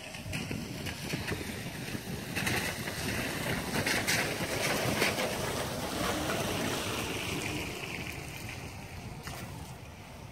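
Wind buffeting the microphone: a rushing noise that swells about two seconds in and eases off near the end.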